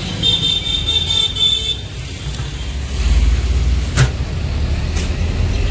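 Road traffic: a high-pitched toot lasts about a second and a half near the start, and a motor vehicle's low rumble swells about three seconds in, with a couple of short clicks after it.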